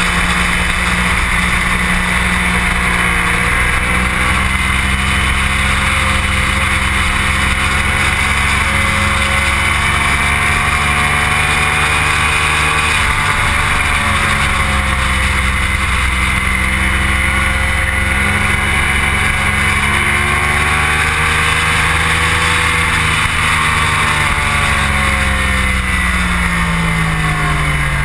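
Motorcycle engine running hard on a track lap, its pitch rising and falling with the throttle, under loud wind rush on the camera. Near the end the pitch drops as the bike slows.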